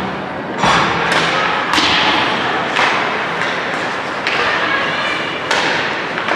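A series of sharp thumps of a ball striking, about six spread unevenly through the stretch, over a steady background of crowd and room noise.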